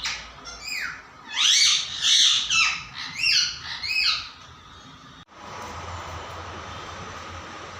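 A pet parrot calling loudly in a rapid run of about eight to ten calls, each sweeping up and falling in pitch, over roughly four seconds. After a sudden cut about five seconds in, a steady background hiss and hum.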